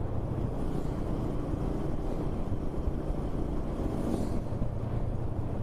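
Motorcycle under way: the engine runs steadily, with wind and road noise.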